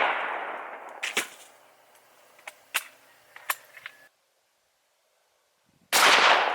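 8mm Mauser rifle shot echoing away, followed by a few sharp metallic clanks and clicks. After a moment of dead silence, a second rifle shot goes off near the end and rings out.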